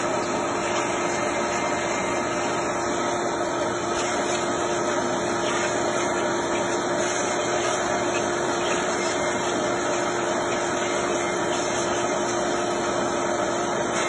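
Vacuum cleaner running steadily through a hose, its nozzle held to a window air conditioner's grille to suck up stink bugs; a constant motor hum with a steady tone in it.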